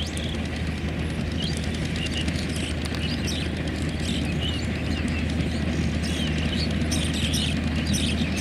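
Small birds chirping repeatedly over the steady low rumble of a passing passenger train, which grows slightly louder toward the end.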